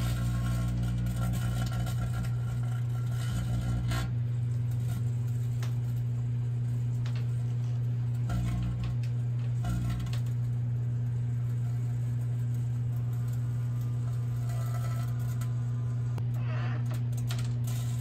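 Microwave oven running with a light bulb inside: a steady loud hum, whose deeper part drops out about four seconds in and comes back briefly a few times, with scattered light clicks and crackles.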